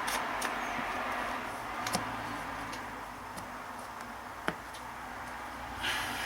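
Trading cards being handled on a table: scattered light clicks and taps as cards are picked up and set down, the sharpest about four and a half seconds in, and a brief sliding rustle near the end, over steady room hiss.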